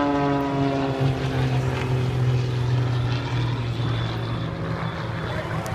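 Aircraft flying past at low level, its engine note falling in pitch as it passes over and away during the first couple of seconds, then a steady low drone.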